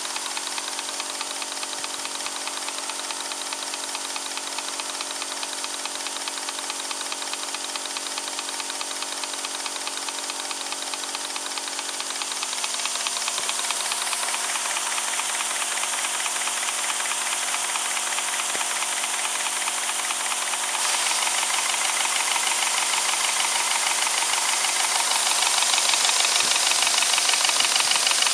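Model twin-cylinder steam engine running fast: a rapid, steady beat of exhaust puffs and clatter with a hiss of steam, growing louder in a few steps through the second half.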